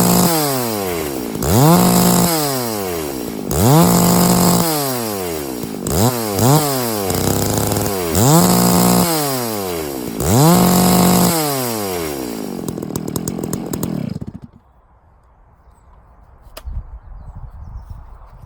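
Stihl MS660 two-stroke chainsaw with a 64-inch milling bar, revved up about every two seconds, the pitch climbing fast and falling back each time, running the chain to get oil on it. It drops to idle and is switched off about fourteen seconds in, and a single click follows.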